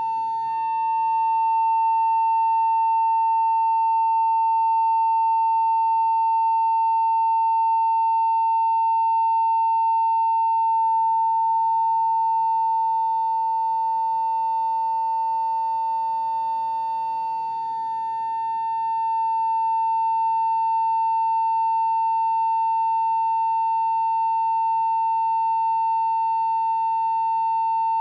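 Steady 900 Hz pure tone, driven by a function generator into a tube of air to set up a standing wave. It holds one pitch throughout with faint overtones, and dips slightly in loudness about 17 to 18 seconds in.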